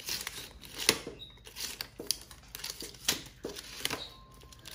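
Retractable tape measure being handled: its extended blade and case rattle and click in irregular sharp knocks, the loudest about a second in.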